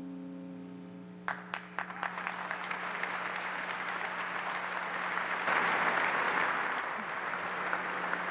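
Audience applause: a few single claps about a second in, then a crowd clapping together, building to its loudest around the middle and carrying on. A steady held tone fades out during the first second.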